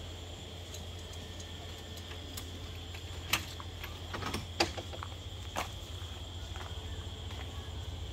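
Night insects making a steady high trill over a low hum, with a few sharp clicks, the loudest about four and a half seconds in.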